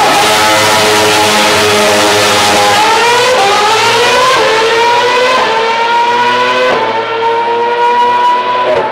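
Lotus Renault R30 Formula One car's 2.4-litre V8 accelerating hard away, climbing through the gears. Its high-revving pitch rises and drops back at each quick upshift, about one a second.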